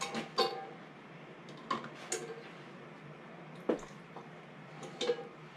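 A handful of light, sharp clicks and knocks of glass canning jars being handled and set on a countertop, spread over a few seconds, above a faint steady low hum.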